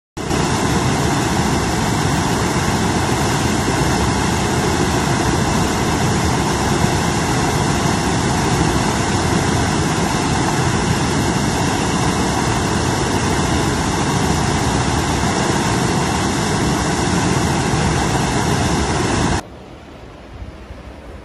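River rapids rushing over granite boulders, a loud, steady wash of water noise. About nineteen seconds in it drops suddenly to a much fainter rush.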